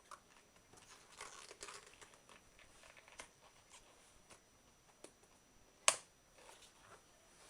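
Hands working a rubber O-ring into the groove of a rigid drysuit neck ring over a latex neck seal: soft rubbing and crinkling of rubber, with one sharp snap about six seconds in.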